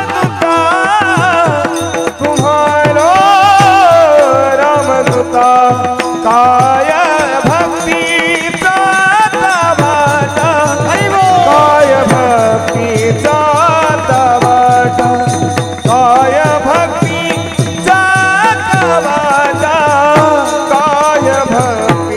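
Men singing a Warkari devotional bhajan with a gliding, ornamented lead voice, while brass taal hand cymbals clash in a steady, fast rhythm over drum beats.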